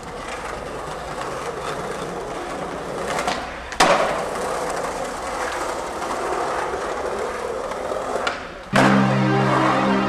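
Skateboard wheels rolling along a city sidewalk, with one sharp clack of the board about four seconds in. Near the end music with steady synth tones cuts in abruptly.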